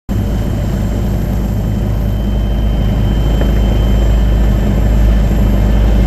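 Aircraft engine noise heard from on board: a loud, steady, low drone.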